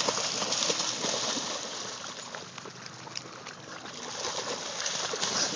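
Dogs bounding through shallow pond water, a steady run of splashes. The splashing is louder at first, eases off in the middle and builds again near the end.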